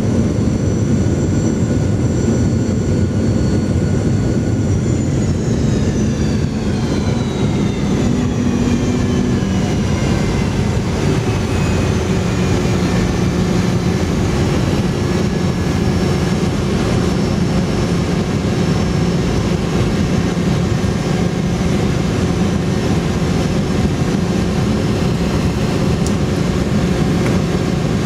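Cabin noise of a Boeing 717 slowing on the runway after touchdown: the whine of its rear-mounted Rolls-Royce BR715 turbofans falls in pitch from about five seconds in as the engines spool down, over a steady rumble of the rollout.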